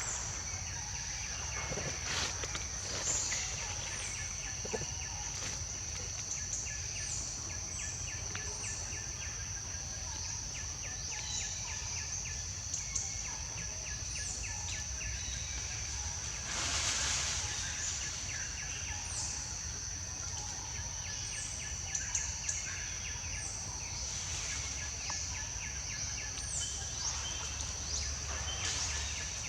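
Outdoor rural ambience: a steady high-pitched insect drone, with birds chirping repeatedly over a low rumble.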